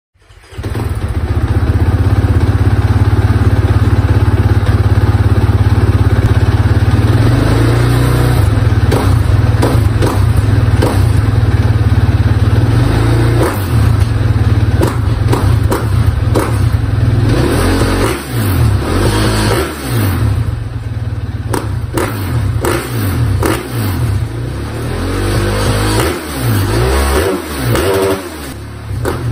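KTM 450 SX-F single-cylinder four-stroke dirt bike engine running through an FMF Q4 Hex muffler. It comes in suddenly at a steady, loud note. After about seven seconds the revs rise and fall again and again.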